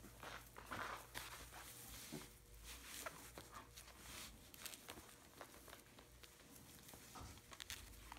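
Faint rustling of straw bedding and light scratching and pattering as a young puppy squirms and scrambles about while being handled, with many soft scattered clicks.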